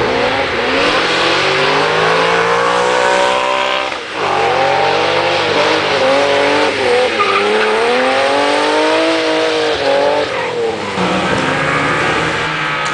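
Drift cars' engines revving high and dropping again in repeated swells, with tyre noise from wheelspin and sliding on a wet track. There is a brief dip in the sound about four seconds in.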